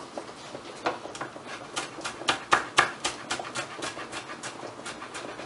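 Chef's knife slicing red bell pepper thin on a cutting board: a quick irregular run of sharp taps as the blade strikes the board, about three a second, loudest in the middle.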